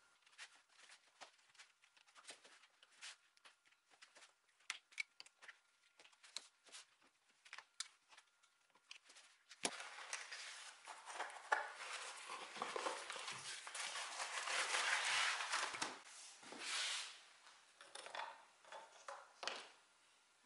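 Upholstery being stripped from a wooden chair frame. First a run of short, sharp clicks and taps as small tacks are worked out of the old leatherette cover. Then, about ten seconds in, the cover and its padding are peeled and torn off the frame with a long, loud rustling and crinkling.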